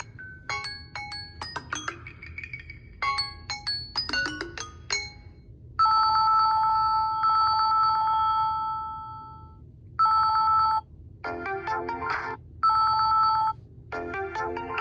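Samsung Galaxy A01 ringtones playing one after another. First come quick phrases of short chiming notes. About six seconds in, a louder ringtone of two steady tones with a fast pulse starts, holds for a few seconds and fades, then returns in short bursts alternating with chords.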